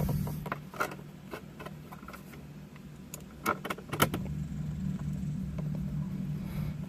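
Scattered small clicks and taps of a screwdriver and dashboard trim as the last trim screw is driven in, over a steady low hum.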